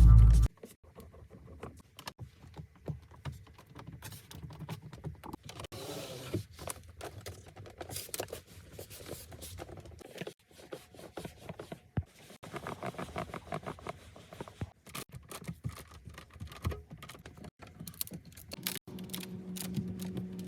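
Scattered small clicks, ticks and light creaks from the interior trim of a 2024 Mercedes-AMG S63 (W223) cabin during a squeak-and-rattle test, over a low steady rumble.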